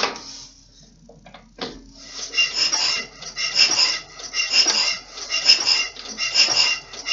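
Berning Di7 diesel of an Agria 2800 single-axle tractor being turned over cold by hand crank to bring fuel up to the injector. A sharp click at the start, then from about two seconds in a rhythmic metallic clatter about once a second with each turn of the crank.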